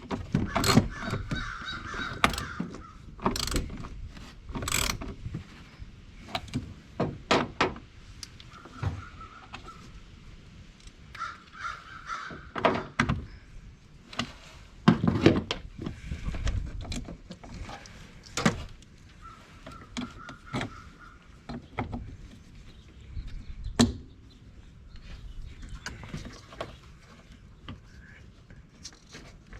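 Hand tools clicking and clanking against metal parts, in irregular sharp knocks and short runs of clicks, during reassembly of a Ford F-250 blower motor housing. Crows caw several times in the background, each call about a second long.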